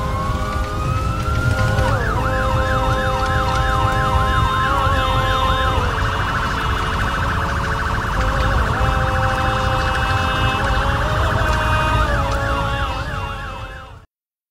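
Emergency sirens sounding together over a low rumble. One wails upward, then a fast yelp warbles several times a second. Around six seconds in it changes to steadier held tones, and the yelp returns near the end before everything cuts off suddenly.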